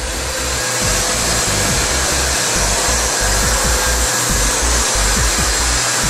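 A vacuum-connected pole drywall sanding head running steadily against sheetrock walls, a continuous rushing noise from the dust-extraction airflow. Background music plays underneath.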